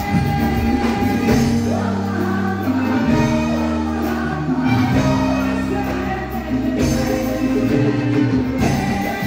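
Live band music with a woman singing, electric guitar and keyboard among the instruments, over long held low notes.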